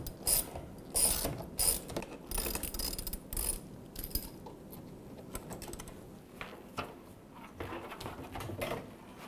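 Hand socket ratchet clicking in quick runs as it backs out the Torx screws holding the dishwasher's door hinges. After about four seconds the clicking stops, leaving a few fainter knocks and rattles of metal parts being handled.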